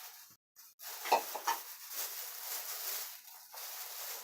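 Close handling noise of fishing line being pulled tight to cinch a knot: soft rubbing, with two brief knocks about a second in.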